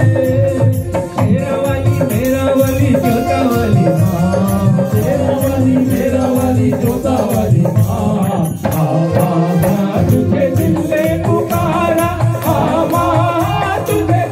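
Amplified Hindu devotional bhajan music: a man's voice sings over melody instruments, with a steady percussion beat and a rattling shaker throughout.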